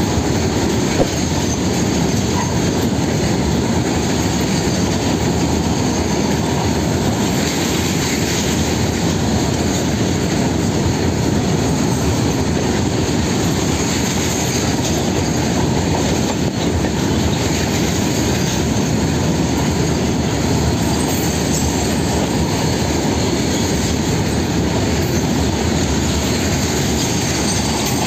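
Freight train of bogie oil tank wagons rolling past close by: a steady, loud rumble of steel wheels on rail with clacking over the rail joints and a thin, high wheel squeal above it.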